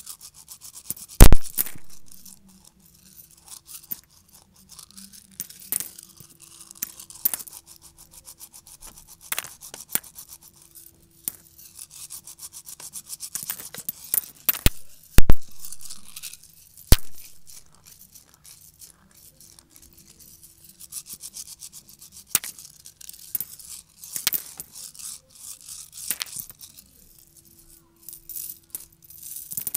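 Vacuum cleaner sucking up crunchy debris: dense crackling and rattling as bits are pulled in, with two loud knocks, one about a second in and one about fifteen seconds in. The motor itself comes through only as a faint hum.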